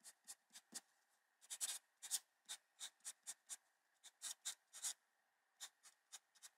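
A Sharpie felt-tip marker writing on a sheet of paper in faint, short, irregular strokes.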